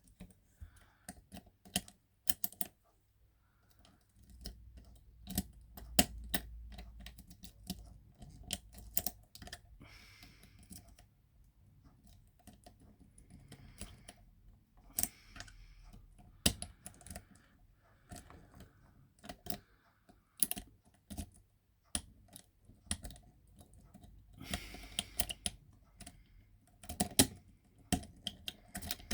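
Hook pick and tension wrench working the pins of a Yale-profile pin-tumbler rim cylinder: irregular small metallic clicks and light scraping as the pins are lifted and set.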